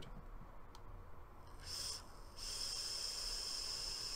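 Air drawn through the tank of a KIMSUN TC40W Mini vape kit, airflow fully open, while the coil fires in temperature-control mode at 300 °C. A short hiss comes a little over a second in, then a longer, steady, high-pitched hiss from about two and a half seconds in. The draw is clean, with no gurgling.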